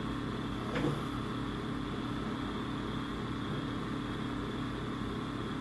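Steady low hum and hiss of background noise, with one faint short knock just under a second in.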